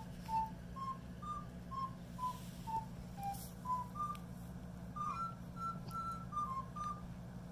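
A simple tune of short, clear whistle-like notes stepping up and down in pitch, a few notes a second, over a low steady hum.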